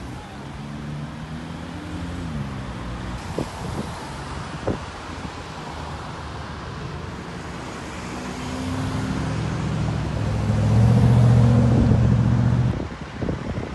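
Road traffic: car engines running and passing close by, with a couple of light clicks. A deeper engine hum builds from about eight seconds in, becomes the loudest sound, and cuts off abruptly near the end.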